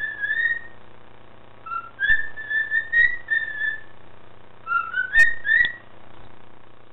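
Cockatiel whistling its song: clear, pitched whistled phrases in three groups, the longest in the middle, with notes stepping up and down between low and high.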